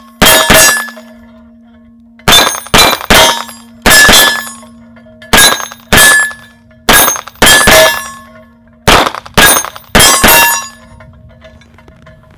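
Walther PPQ Navy SD 9mm pistol firing about fifteen shots in quick pairs and short strings, ending about ten seconds in. A steel gong rings on steadily beneath the shots as hits land on it.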